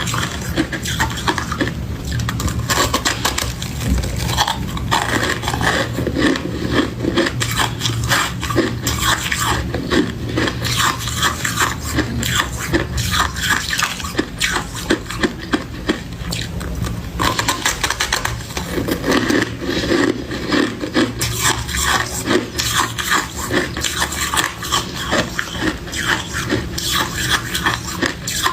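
Close-miked crunching and chewing of powdery freezer frost: dense, rapid crackles that keep going without a break.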